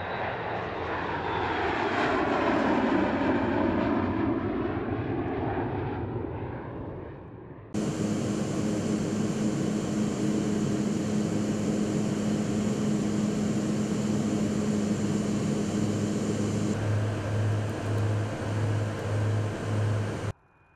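An uncrewed jet aircraft's engine noise swells and fades as it climbs past after takeoff, its tone sweeping as it goes by. About eight seconds in there is an abrupt change to a steady in-flight engine drone with a low hum and a high hiss. Near the end the drone picks up a pulsing throb, about two beats a second, before it cuts off suddenly.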